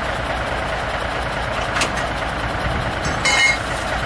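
Diesel engine of a semi truck idling steadily. A little after three seconds a brief high-pitched chirp sounds over it.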